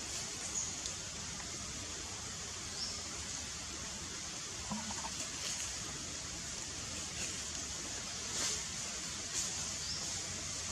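Steady high-pitched outdoor hiss with a few faint short chirps and clicks, and a brief clucking call about five seconds in.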